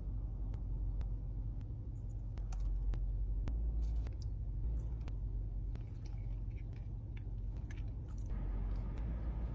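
Steady low rumble of a car cabin, with scattered light clicks and rustles of hands handling food and paper packaging as a burger is assembled.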